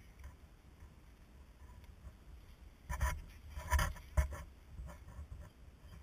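Low wind rumble on the microphone. About three seconds in come roughly a second of rustling and scuffing with soft knocks, ending in one sharper thump.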